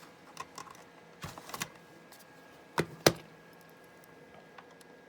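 Small plastic clicks and taps from laptop parts being handled and snapped, with two sharp, loud clicks close together a little under three seconds in.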